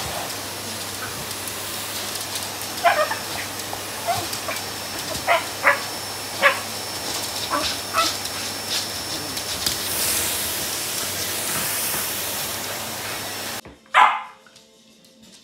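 Westie (West Highland white terrier) giving a series of short, sharp yaps at a running vacuum cleaner, over the cleaner's steady hissing drone. Near the end the drone cuts off and the terrier gives one loud bark.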